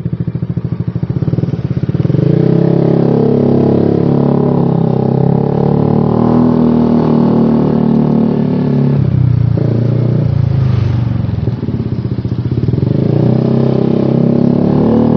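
Motorcycle engine exhaling through an aftermarket trioval long-style exhaust with a long header. It idles with even pulses at first, then its speed rises about two seconds in and holds, eases off briefly around the middle, and picks up again near the end. The owner later calls the sound rather loud.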